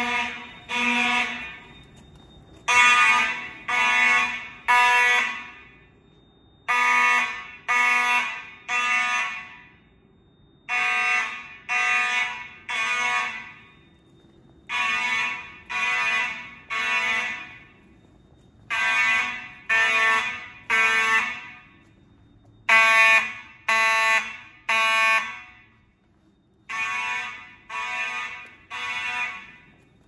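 FCI mechanical fire alarm horns sounding the temporal-three evacuation signal: three buzzy blasts about a second apart, then a pause, repeating about every four seconds. The horns grow louder and fainter from group to group.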